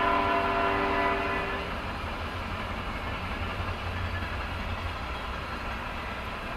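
Freight locomotive air horn sounding a steady chord of several tones, cutting off about a second and a half in. It is followed by the steady low rumble of the freight train rolling past.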